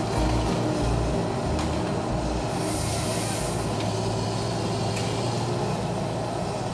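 Cat tracked forestry harvester running steadily, its diesel engine and hydraulics working as the boom swings the harvester head. A brief hiss about two and a half seconds in.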